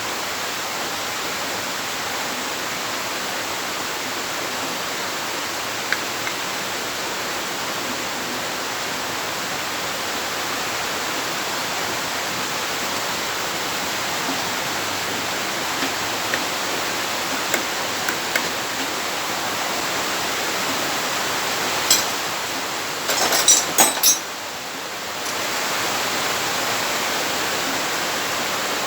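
Heavy rain, a steady even hiss throughout. A few sharp clicks and taps stand out, loudest in a short cluster a little after the middle.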